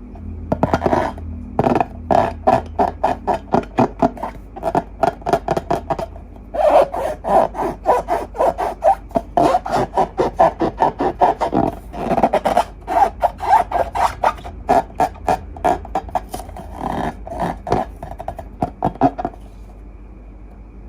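Hands rubbing and squeezing balloons and slime: a fast run of short squeaky scraping strokes, a few a second, with a brief pause partway and a stop near the end.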